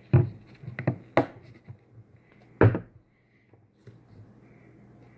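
A few sharp knocks and taps from objects being handled and set down on a table, the loudest about two and a half seconds in, over a faint low hum.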